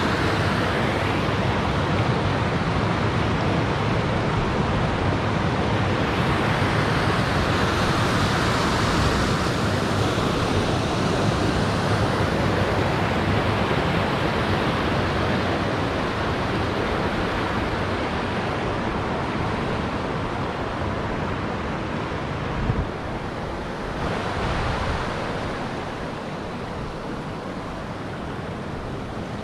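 River rapids: water rushing steadily over rock ledges, growing quieter over the second half of the stretch. One brief knock about 23 seconds in.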